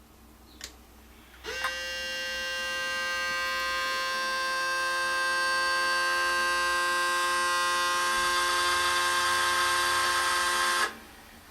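A steady whine with many pitches from a 1986 RCA CMR200 VHS camcorder as it is switched on. It starts about a second and a half in with a brief upward slide and cuts off suddenly near the end. The owner thinks the noise comes from the camcorder's stuck cassette door.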